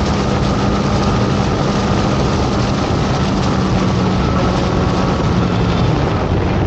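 Motorcycle riding at about 60 mph: loud, steady wind rush on the camera microphone over a steady engine drone, which fades out near the end.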